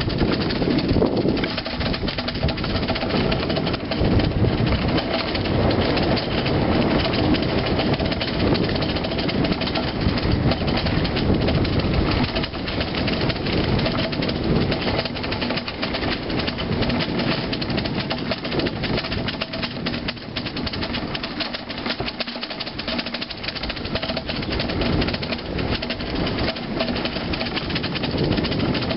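Bicycle rattling and jolting steadily over a rough concrete path, the bike and camera mount shaking, with tyre rumble. It eases a little a few seconds past the middle.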